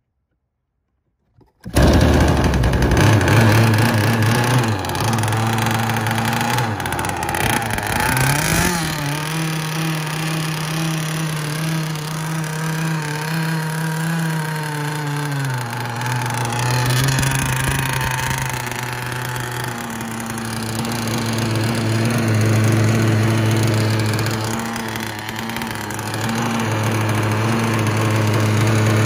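Gas RC boat's small single-cylinder two-stroke engine starting about two seconds in and running out of the water. Its pitch rises about eight seconds in, holds, drops back around fifteen seconds, and climbs again from about twenty seconds as the throttle is worked.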